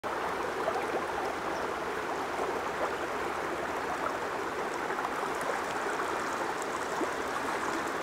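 A shallow creek flowing steadily over stones, a constant babbling rush of water.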